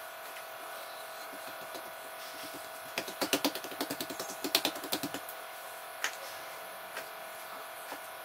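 Hands patting and pressing soft börek dough out on an oiled marble countertop: a quick run of light slapping taps for about two seconds near the middle, then a couple of single taps, over a steady background hum.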